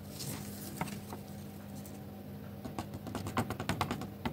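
Fine holographic nail glitter trickling off a folded paper sheet into its small jar. Faint scattered ticks become a quick, dense patter about two-thirds of the way in.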